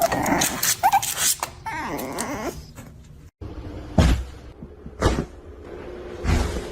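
A pet animal making a few short, bending calls, then, after a sudden cut, several dull thumps.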